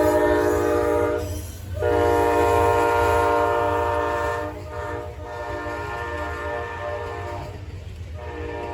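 Amtrak train's multi-note horn sounding several long blasts with short breaks between them, over the low rumble of the passing train. The horn gets quieter after the second break.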